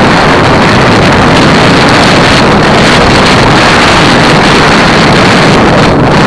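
Loud, steady wind rush on the microphone of a bicycle-mounted camera moving at about 35 km/h.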